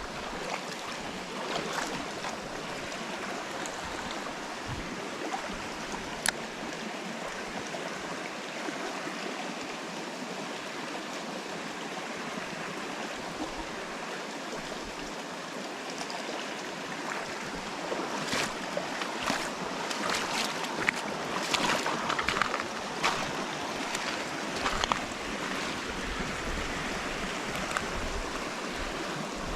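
Running stream water rushing steadily, with a burst of sharp clicks and splashes in the second half.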